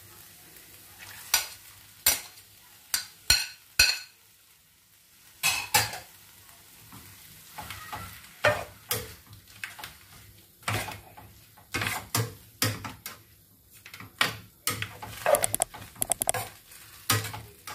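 Metal spatula scraping and knocking irregularly against a non-stick frying pan as sliced beef is stir-fried with curry paste and shallots, with a faint sizzle between the strokes.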